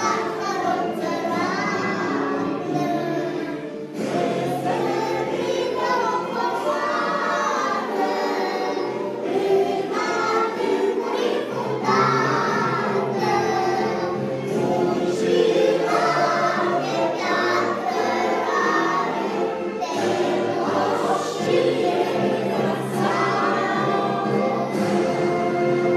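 A song sung by a choir of voices over musical accompaniment.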